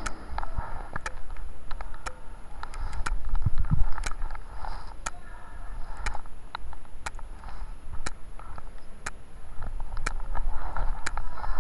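Muffled handling or rubbing noise: scattered sharp clicks over a low rumble, with faint, indistinct voices now and then.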